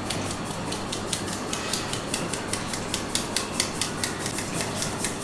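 A stainless steel rava sieve full of ground garam masala is shaken side to side by hand over a steel plate. It gives rapid, even light taps, about five or six a second, over the soft hiss of fine spice powder sifting through the mesh.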